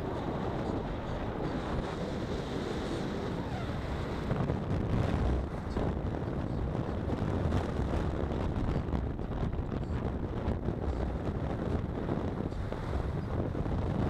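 Wind rushing over the microphone of a camera riding on a moving car, with the low rumble of the car's tyres and engine on a worn asphalt road underneath.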